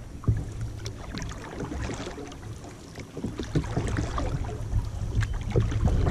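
Kayak being paddled: paddle blades dipping and splashing and water dripping off them, with a low rumble of wind on the microphone.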